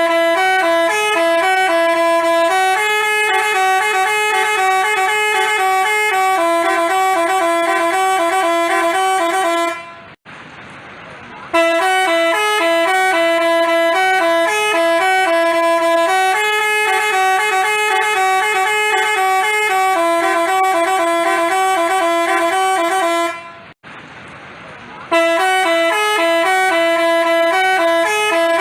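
Telolet basuri multi-tone bus horn playing a melody in steady horn tones. It breaks off twice for about a second and a half, leaving only background noise, then starts the tune again.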